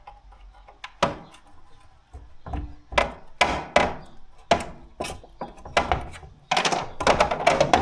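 A series of sharp knocks and clanks from hand tools and parts being handled during gearbox work, about a dozen, coming faster and louder in the second half, some ringing briefly.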